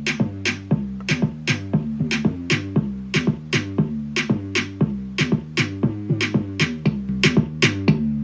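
Instrumental passage of a Spanish-language pop song played through a Goodmans Bluetooth rock speaker: a drum-machine beat with quick, regular hits over a steady bass line, with no vocals.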